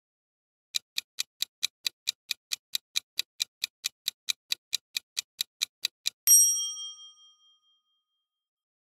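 Quiz countdown sound effect: a clock ticking fast and evenly, about four or five ticks a second, for some five seconds. Then a single bright chime rings out and fades, the answer-reveal ding.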